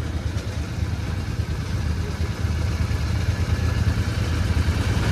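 Vehicle engines idling: a steady low rumble that gets a little louder about halfway through.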